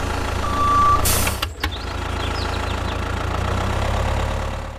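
Low, steady tractor engine drone as the toy tractor tows its trailers. A short single-pitch beep comes about half a second in, followed by a brief burst of hiss, and the engine sound stops just before the end.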